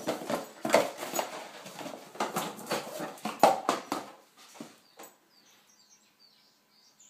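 Dog tearing at and batting an empty cardboard box on a tiled floor: rapid crumpling, ripping and knocking of cardboard, which stops about four seconds in.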